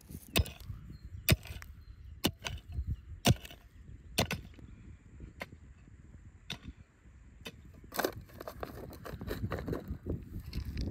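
Shovel blade digging into stony soil: sharp strikes roughly once a second, turning about eight seconds in to a quicker run of scraping and crunching of dirt and stones.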